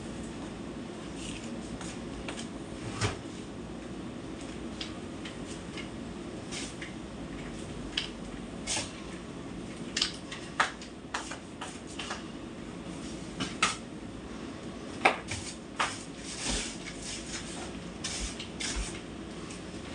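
Household cleaning and tidying: scattered short clinks, knocks and brief scrapes of items and dishes being handled and put away, more frequent in the second half, over a steady low hum.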